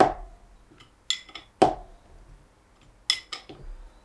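A steel spanner clinking and knocking against the tight, Loctited brass fitting of a pressure-washer trigger gun as it is worked loose: a handful of sharp metal clinks in small clusters, the loudest knocks at the start and about one and a half seconds in.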